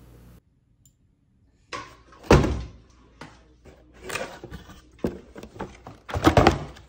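Cardboard filament box being handled and opened: a sharp thunk about two seconds in, then scattered knocks and scrapes of cardboard and packaging, with a dense cluster of knocks near the end.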